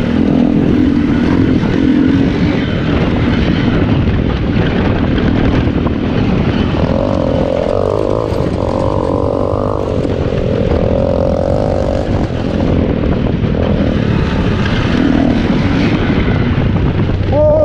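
Small single-cylinder motorcycle engine running under way on a dirt trail, revving higher about seven seconds in and dropping back a few seconds later, over constant wind and ground noise.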